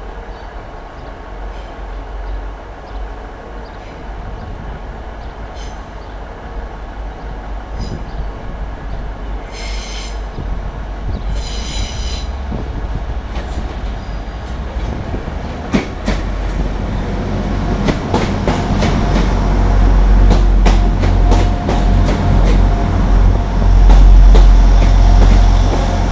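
Arriva Trains Wales Class 175 Coradia diesel multiple unit drawing into the platform. Its engine rumble builds steadily as it approaches, then its wheels click over the rail joints and a steady squeal sets in as it passes close by.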